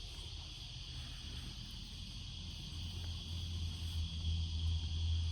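Steady high chirring of insects such as crickets, with a low hum that grows louder about three seconds in.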